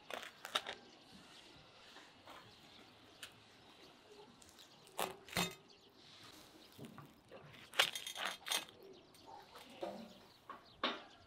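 Scattered soft knocks and rustles of crusty toasted bread rolls being set down and stacked on a ceramic plate, a few short clusters of sound over a quiet background.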